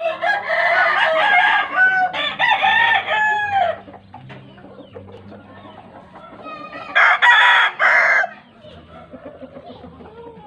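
Roosters crowing for the first few seconds, then two short loud calls about seven seconds in.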